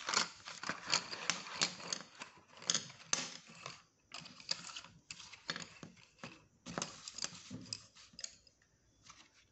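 Wooden sketch pencils clicking and clattering against each other and their plastic holder tray as they are tipped out onto paper: a quick run of sharp knocks that thins out to a few light ticks near the end.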